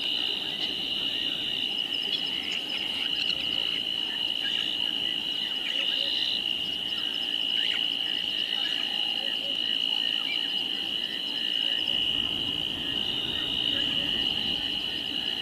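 Steady chorus of insects such as crickets: a continuous high, unbroken trill. A low rumble comes in underneath about three-quarters of the way through.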